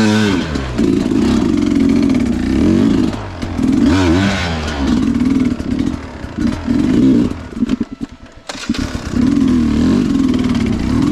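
Sherco two-stroke enduro dirt bike engine being ridden under changing throttle, revving up and falling back several times, with a brief drop near the throttle-off point about eight seconds in before it picks up again.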